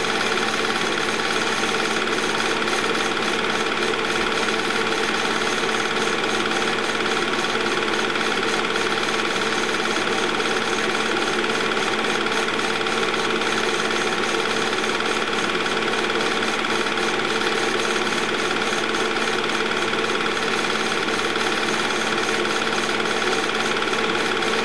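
Movie projector running, very loud: a rapid, even mechanical clatter of the film being advanced, over a steady whine.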